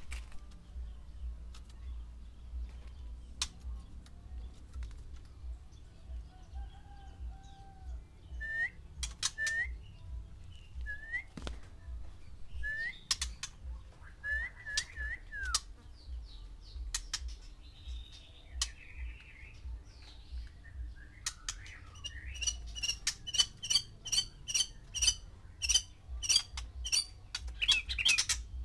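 White-rumped shamas calling: scattered sharp clicks and short upswept chirps, turning into a fast run of harsh repeated calls over the last several seconds.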